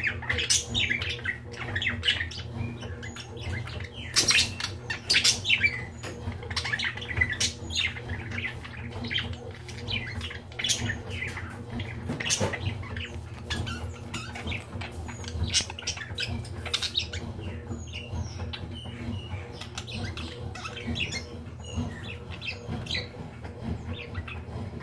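Courting budgerigars chattering with many short squawks and chirps, thicker in the first half. A steady low hum runs underneath.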